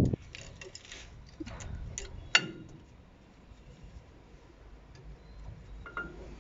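Scattered small metallic clicks and clinks of brake shoe hardware and tools being handled, with a sharper, briefly ringing clink about two and a half seconds in.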